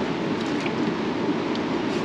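Steady rushing of a swollen river running high after heavy rain, an even roar of flowing water.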